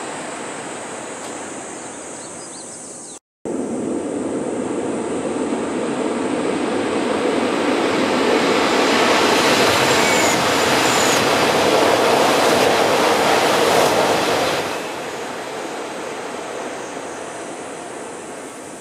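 E6 series Shinkansen passing at speed: a rushing noise of air and running gear that swells over several seconds, stays loudest for about five seconds, then drops off sharply and fades. A brief gap of silence comes about three seconds in.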